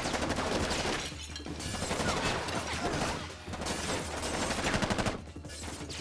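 Rapid automatic gunfire in long bursts, dense with shots, broken by short pauses a little after one second in, at about three and a half seconds, and again near the end.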